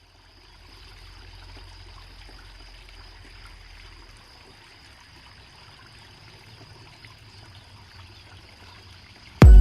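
Faint trickling, running water with a thin steady high tone over it. Loud electronic dance music cuts in suddenly at the very end.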